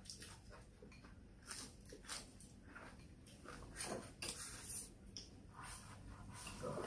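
Faint mealtime sounds: chopsticks clicking against porcelain bowls, chewing, and slurping from a bowl. Short clicks are scattered throughout, with louder slurping noises about four seconds in and near the end.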